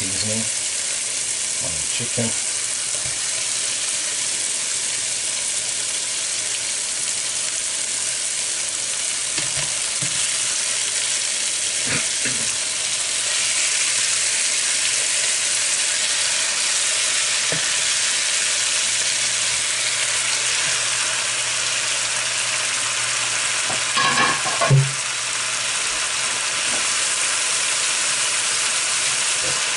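Chicken pieces sizzling in a frying pan as they are added by hand, a steady frying sizzle throughout. A few knocks break in, the loudest a short clatter near the end.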